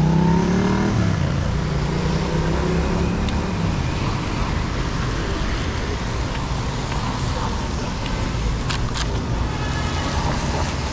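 Road traffic at a busy roundabout. A motor vehicle's engine rises in pitch as it pulls away over the first few seconds, then gives way to a steady traffic rumble with a couple of sharp clicks near the end.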